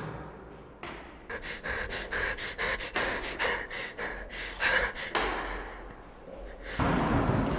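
A person panting hard, quick breaths in and out one after another; near the end a louder rush of noise comes in.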